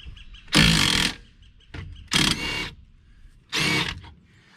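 Impact wrench on the 18 mm lower rear shock bolt, hammering in three short bursts of about half a second each as the bolt is broken loose.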